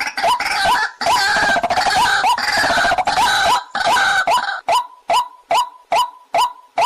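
Waterhen calls: a fast, even series of short, upward-sweeping notes, about two a second. For the first two-thirds a fuller layer of calling overlaps them; then it thins to a single steady run of clear notes.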